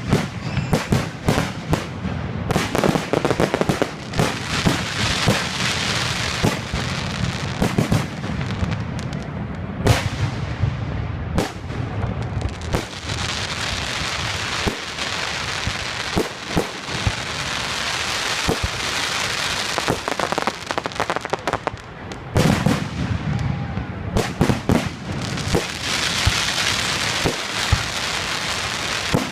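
Fireworks display: shells bursting in rapid, irregular bangs over a dense, continuous crackling hiss. It thins out twice briefly, then builds again.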